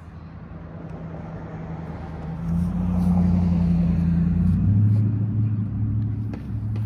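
A motor vehicle's engine on a nearby road, getting louder over the first few seconds and staying loud. Its engine note changes pitch twice, as if shifting gear.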